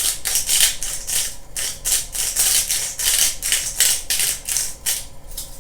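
Salt shaken from a salt shaker over grated potatoes: a quick run of rattling, hissing shakes, about three a second, that stops near the end.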